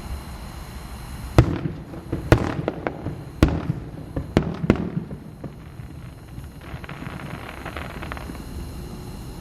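Aerial fireworks display: five sharp bangs within about the first five seconds, each trailed by a rumbling echo, two of them close together, then a softer spell of crackling for about a second and a half.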